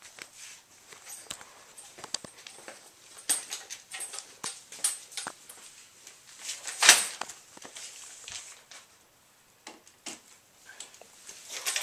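Scattered light knocks, clicks and rustles of tools and plastic being handled, with one louder sharp knock about seven seconds in. No power tool runs.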